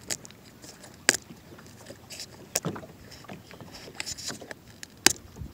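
Handling noise from turning a camera mount on a plastic kayak: a few sharp knocks and clicks, the loudest about a second in and near the end, with rubbing and scraping between. The mount is stiff and slow to turn.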